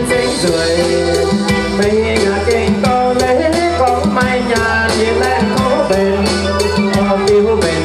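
Live band dance music with a steady beat, keyboard-led, with a singer's voice.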